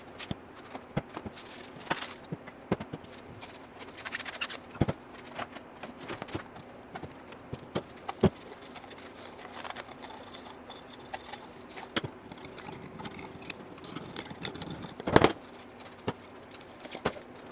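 Hand tools and parts being handled during tractor servicing: scattered irregular clinks and knocks, with the loudest knock about 15 seconds in, over a faint steady hum.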